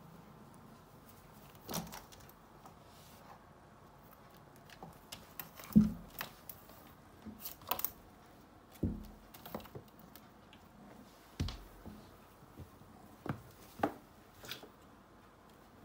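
Kitten clawing at and climbing a lace curtain: scattered light clicks and soft thumps, the loudest thump about six seconds in.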